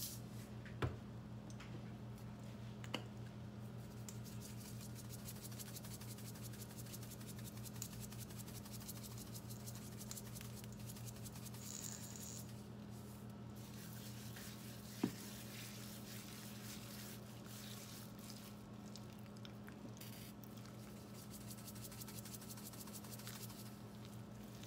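Faint scratching and pattering of salt and pepper being ground and shaken from seasoning containers onto raw meat, then hands rubbing and turning the meat on plastic wrap, over a steady low hum. A few light clicks, the sharpest about fifteen seconds in.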